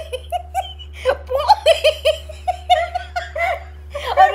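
A woman laughing hard on and off, a string of short ha-ha sounds with brief pauses for breath.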